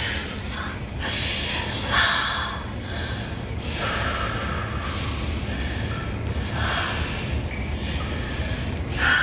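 A woman in labour breathing hard, with heavy, noisy breaths and gasps that come in surges about every two seconds.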